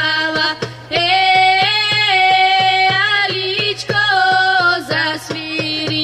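Women singing a Bulgarian folk song in long held, ornamented notes, accompanied by a hand drum struck in a steady beat.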